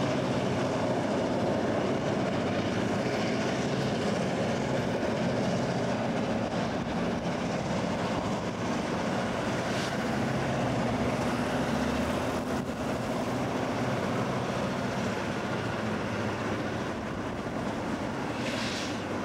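Freight train of loaded limestone hopper cars on the Duluth, Missabe and Iron Range Railway rolling past, a steady rumble of steel wheels on rail. There is a brief high hiss about halfway through and another near the end.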